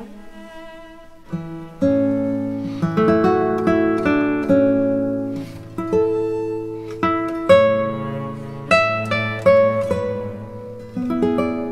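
Background music: an acoustic guitar playing a melody of single plucked notes, each ringing out and fading. It grows fuller from about two seconds in.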